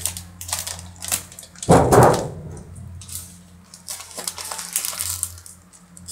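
Plastic snack packets crinkling and rustling as a toddler handles them, in short irregular crackles, with one louder bump about two seconds in.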